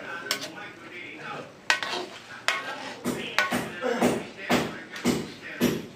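A cooking utensil knocking and scraping against a large wok full of laing while it is stirred, about ten sharp clanks at uneven intervals.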